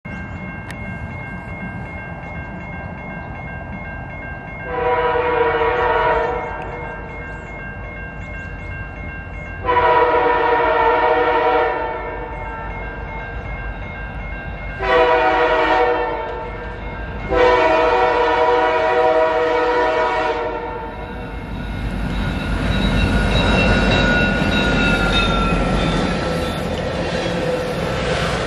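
Diesel locomotive air horn on an approaching CN track geometry train sounding the grade-crossing signal: long, long, short, long, over the steady ringing of a crossing signal bell. After the last blast the train passes close by with a rumble of wheels on rail and a slowly falling tone.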